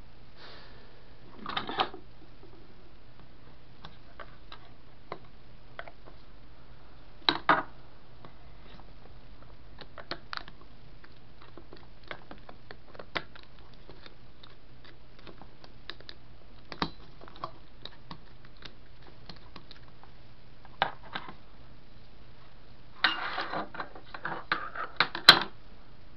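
Scattered small clicks and taps of hands and a tool working on a transistor circuit board and its aluminium heatsink, with a denser run of rattling clicks near the end. A faint steady low hum runs underneath.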